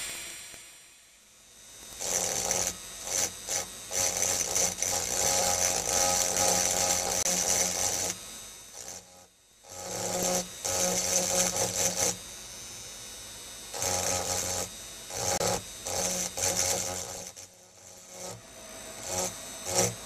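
A drill engraving handpiece's spinning point grinding into an optical crystal perfume bottle: a steady hum with a high gritty hiss, in several spells of a few seconds with short breaks between.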